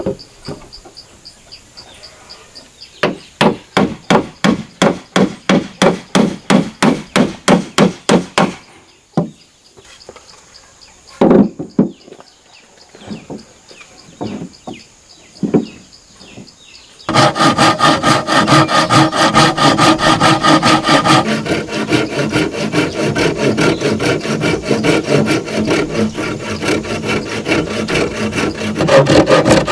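Nails being hammered into wooden planks, a quick even run of blows for several seconds, followed by a few scattered knocks as boards are fitted. Then a hand saw cuts through a board with fast, steady back-and-forth strokes from about halfway on.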